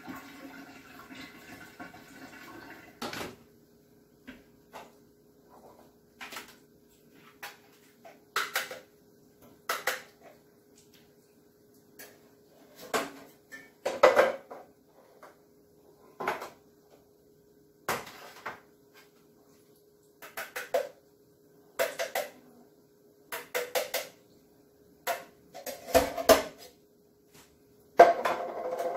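Cans, a bowl and utensils being handled and set down on a kitchen counter: scattered clinks and clatters, about one every second or so, over a faint steady hum. A steady rushing sound at the start stops about three seconds in.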